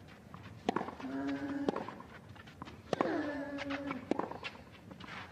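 Tennis rally on a clay court: four racket strikes on the ball about a second apart, every other one with a player's short grunt that falls in pitch.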